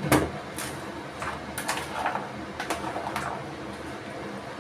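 A spoon stirring and scraping chicken and vegetables in a pot: a series of short scrapes and clinks, over a steady low hum.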